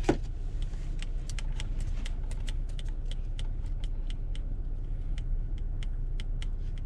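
Car idling, heard from inside the cabin as a steady low hum, with quick irregular light clicks over it, several a second.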